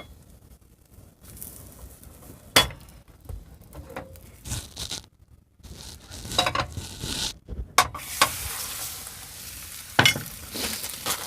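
Egg omelet sizzling in a frying pan, with a spatula knocking and scraping against the pan about five times.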